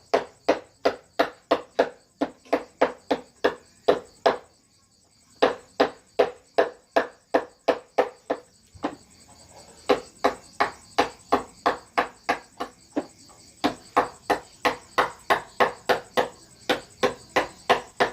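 A mallet striking a wood-carving chisel, in steady sharp taps about three a second, with two short pauses, one about a quarter of the way in and one about halfway.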